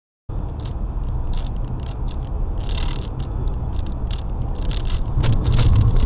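Car cabin rumble picked up by a dashcam as the car drives in traffic: a steady low drone of engine and tyres with scattered light clicks. It starts abruptly just after the start and grows louder over the last second.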